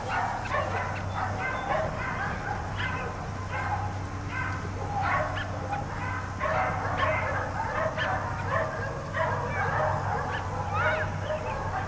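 Several dogs barking and yipping over one another without a pause, over a steady low hum.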